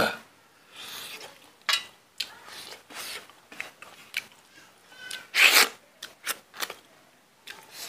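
Close-up eating sounds: chewing and mouth smacks while eating by hand, mixed with fingers scraping food across a steel plate. They come as a string of short, separate bursts, the loudest about five and a half seconds in.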